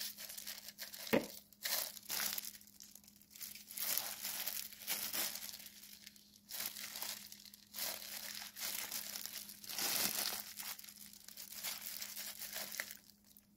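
Clear disposable plastic glove crinkling and rustling in irregular bursts as a gloved hand squeezes water out of a bundle of blanched scallions, stripping down along the stalks. A faint steady hum runs underneath.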